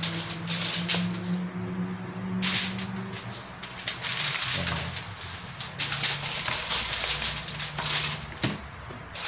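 Aluminium foil and banana leaves crinkling and rustling in repeated bursts as they are handled and folded, over a steady low hum.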